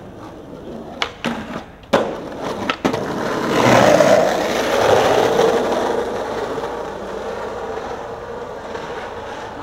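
Skateboard: a few sharp clacks of the board in the first three seconds, then the wheels rolling over rough pavement, loudest about four seconds in and settling into a steady roll.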